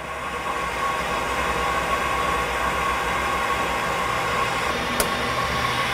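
BendPak brake lathe running with a flywheel spinning on its arbor: a steady whir with a faint steady whine, swelling a little over the first second. A single sharp click about five seconds in.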